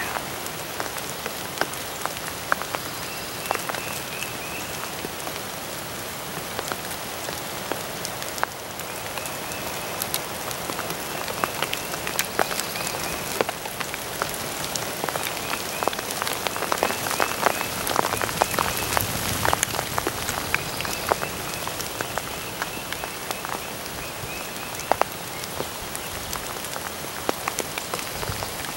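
Steady rain falling, with many sharp raindrop ticks close by. A high, even trill comes and goes in stretches of a few seconds.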